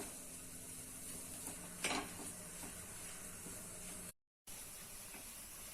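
Faint steady sizzling hiss of methi zunka cooking in the kadhai, with one short sound about two seconds in. The sound cuts out completely for a moment just after four seconds.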